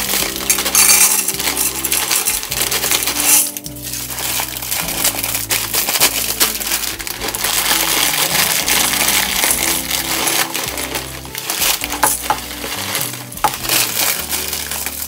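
Dry fusilli pasta pouring from a plastic bag into a clear plastic canister, the hard pieces rattling and clattering against the plastic and each other in a dense stream of clicks.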